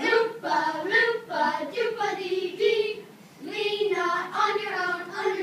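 Children singing a song: one phrase, a brief break about three seconds in, then a second phrase.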